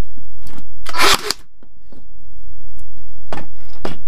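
Ferrex cordless nail gun firing once about a second in, a single sharp crack as it drives a nail into a softwood block on its second try after a jam warning. Two light knocks follow near the end as the gun is set down on the wooden bench.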